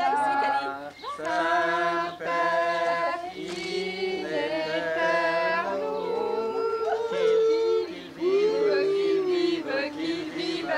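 A group of people singing a song together unaccompanied, in several voices, with some long held notes.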